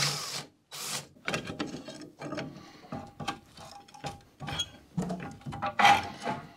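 Cordless drill-driver spinning in two short bursts, then a ratchet wrench clicking in uneven runs while loosening the front brake caliper mounting bolts of a Škoda 105.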